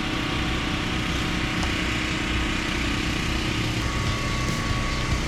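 A small engine running steadily, a constant hum with no change in speed.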